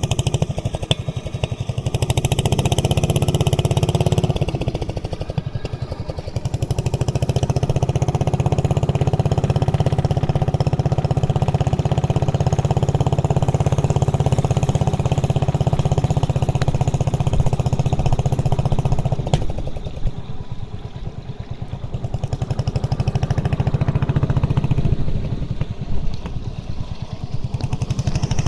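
A small engine running steadily, easing off twice and picking back up.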